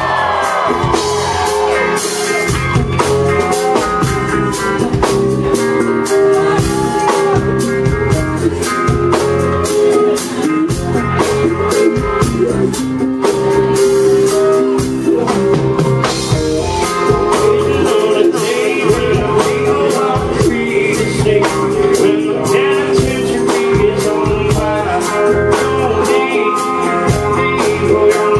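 Live band music: electric guitar and drum kit playing with a steady held note underneath, heard from the front of the crowd at a club show.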